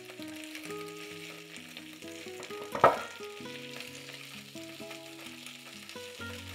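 Sauced pork ribs sizzling in a hot grill pan as tongs turn them, with one sharp clack about three seconds in.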